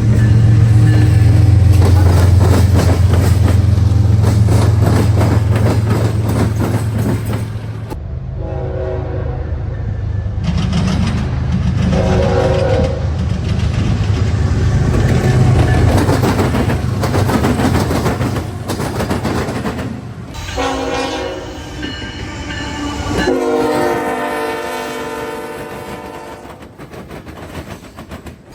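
A train rumbling past with wheel clatter on the rails. Then a locomotive air horn sounds a multi-note chord in four blasts: two of a second or so, a shorter one, and a long blast of about four seconds near the end. This is a horn show sounded for railfans.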